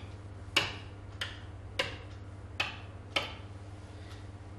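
Five sharp clicks or taps at uneven intervals of about half a second, the first the loudest, each with a short ring, over a steady low hum.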